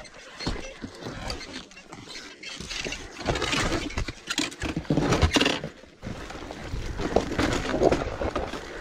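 Dirt bike rolling down a rough, rooty dirt trail: an irregular clatter of knocks, rattles and crunches as the tyres and chassis go over the bumps.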